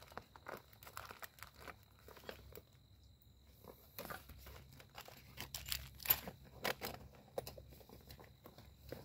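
Rustling and crinkling of a hand rummaging through a gear bag, with scattered irregular clicks and knocks, the loudest about six to seven seconds in.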